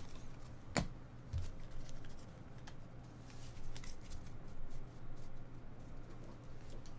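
Baseball trading cards being handled and slid against each other: soft scraping with scattered light clicks, and one sharper click about a second in.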